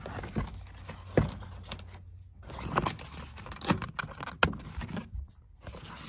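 Plastic moisture barrier sheet being handled and pressed back onto a pickup's inner door panel: irregular rustling with several sharp knocks and taps.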